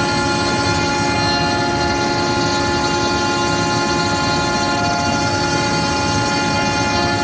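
CNC router spindle running at high speed, cutting into MDF: a steady high whine with the hiss of the cut.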